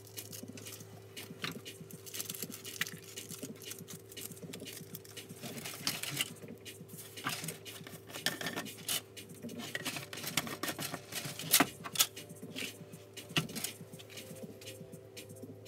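Small tools and objects being handled on a steel workbench: irregular clicks, clinks and scrapes, with a couple of sharper clinks a little past the middle, over a steady low electrical hum.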